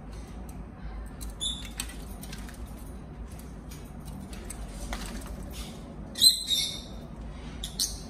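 Rosy-faced lovebird bathing in a water dish: quick small splashes and wing flicks, with short high chirps about a second and a half in, a louder chirp about six seconds in, and another near the end.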